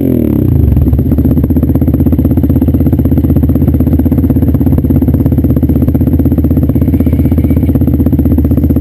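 Dirt bike engine running steadily at idle, heard close to the bike, with a dense, even pulse of exhaust firing.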